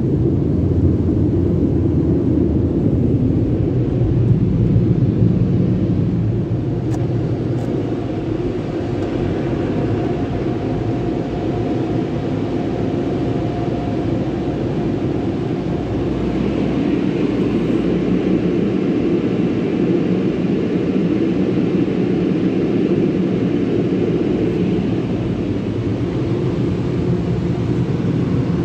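Automatic car wash tunnel machinery running, heard from inside a car's cabin: a steady loud rumbling noise, with a higher hiss joining about sixteen seconds in.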